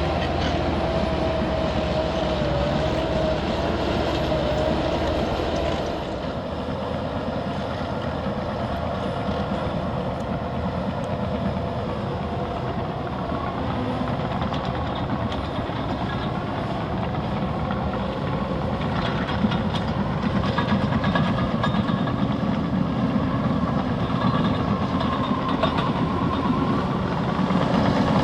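Liebherr PR 756 and PR 736 crawler dozers pushing earth: diesel engines running under load with the clank and rattle of steel tracks. The sound eases a little about six seconds in and grows louder again in the last third.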